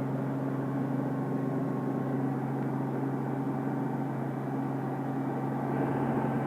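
Robinson R44 Raven II helicopter's engine and rotor system running, heard from inside the cabin as a steady drone with a constant low hum, while the helicopter is maneuvered onto its parking spot.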